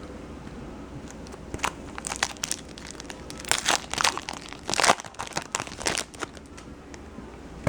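Foil wrapper of a baseball card pack crinkling and tearing as it is opened, a quick run of crackles that is busiest in the middle.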